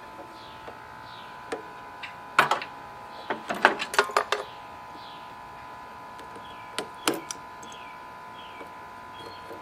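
Sharp clicks and knocks of hands and tools working at a riding mower's fuel line and filter, in a cluster a couple of seconds in and twice more a few seconds later. Underneath is a steady hum and short falling chirps repeating about twice a second.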